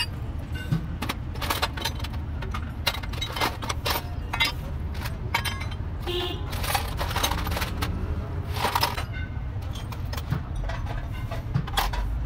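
Steel truck gearbox parts clinking and tapping irregularly as the gears and small retaining pieces are handled and fitted on the mainshaft, over a steady low rumble.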